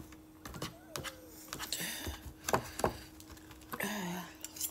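Plastic cutlery clicking and scraping against food in a cardboard takeout box, about a dozen short sharp clicks. A brief low hum near the end.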